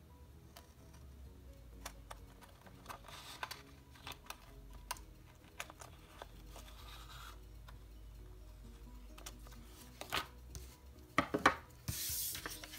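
Soft background music under small desk-work sounds of paper and stickers being handled and cut with scissors: scattered light clicks and rustles, a few sharper snips about eleven seconds in, then a short burst of paper rustling near the end.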